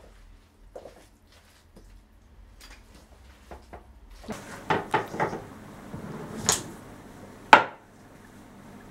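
Wooden spoon stirring a thick salt-cod batter in a stainless steel bowl, scraping and knocking against the metal. Faint at first, busier from about four seconds in, with a sharp knock near the end.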